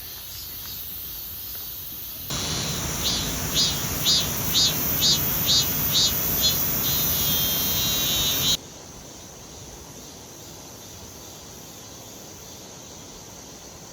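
An insect calling in sharp, high-pitched pulses, about two a second, then trailing into a trill, over a steady rushing noise. About two seconds in it starts and about eight and a half seconds in it cuts off abruptly to a quieter hiss.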